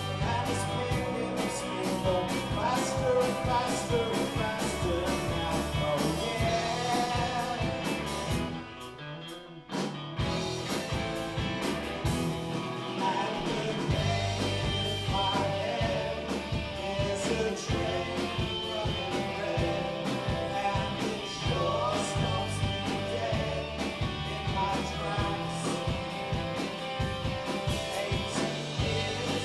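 Live rock band playing, with electric guitars, bass and drums. About eight and a half seconds in the band drops away for around a second and a half, then comes back in at full level.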